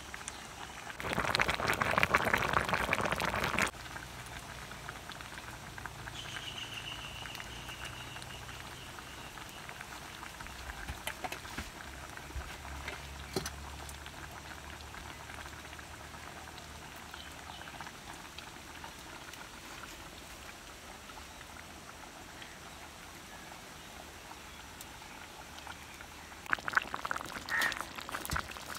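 Fish curry simmering in a pot, a steady faint bubbling hiss, with a loud rushing noise for about two and a half seconds near the start. A few pot and lid clinks come near the end.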